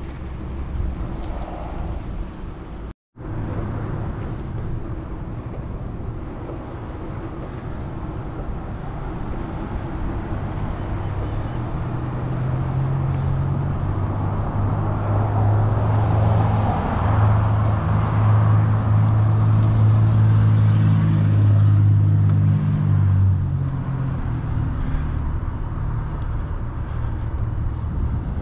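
Steady wind and road noise from a bicycle ride along a street. A motor vehicle's engine runs close by for about ten seconds in the middle and is the loudest sound. The sound cuts out briefly about three seconds in.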